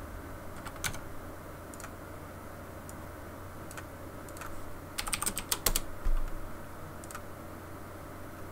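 Computer keyboard and mouse clicks: scattered single clicks, then a quick run of keystrokes about five seconds in.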